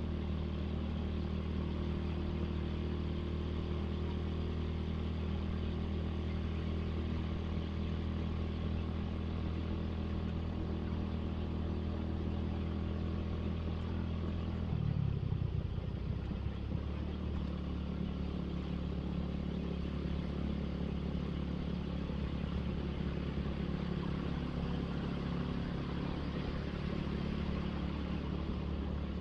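Suzuki Satria FU motorcycle engine running steadily while riding, its note breaking and settling at a different pitch about halfway through.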